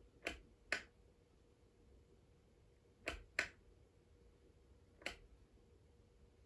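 Sharp clicks of a Quinetic self-powered kinetic wireless wall switch being pressed and released: two quick pairs, then a single click, as the switch is pressed and held to bring the downlights' brightness up and down.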